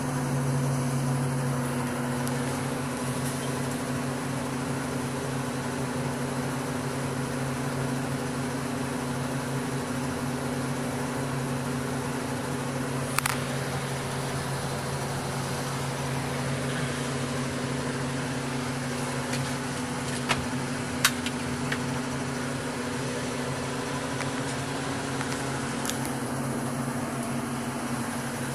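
Mobile crane's diesel engine running steadily at an even pitch, heard from inside the operator's cab, with a few sharp clicks partway through.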